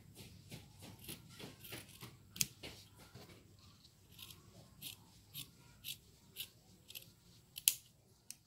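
Scissors cutting through a sheet of polyester felt: a run of short, crisp snips, about two a second in the second half, the sharpest one near the end.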